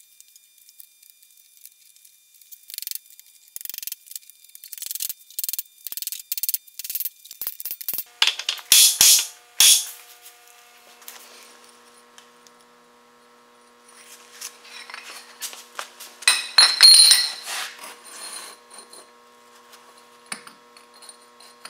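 Steel parts clinking and knocking against a welded steel-tube vise stand: a run of sharp clinks for several seconds, then another loud cluster about two-thirds of the way through.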